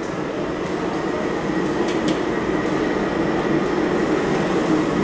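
Steady roar of a busy commercial kitchen, its extractor hoods and cooking stations running, with two faint clicks about two seconds in.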